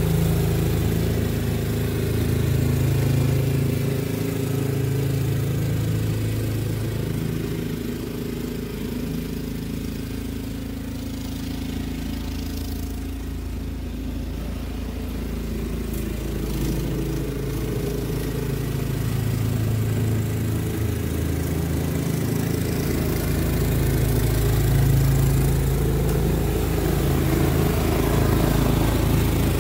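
Toro SnowMaster 824 QXE snowblower's single-cylinder gas engine running steadily while it clears snow. It grows fainter as the machine moves off, then louder again over the last few seconds as it comes back close.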